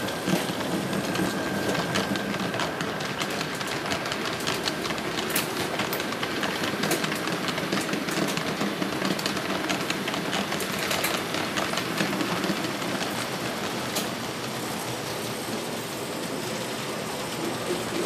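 Märklin HO scale model trains running on the layout track: a steady rolling rumble with frequent irregular sharp clicks as the wheels pass rail joints and points.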